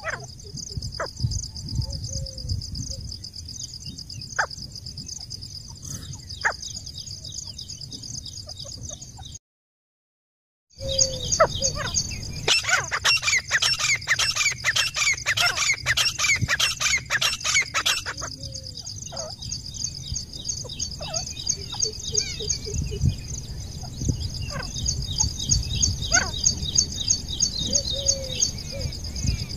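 Grey francolin calling: scattered short calls, then a fast run of loud repeated notes lasting about five seconds in the middle, over a steady high-pitched drone. The sound cuts out completely for about a second shortly before the run.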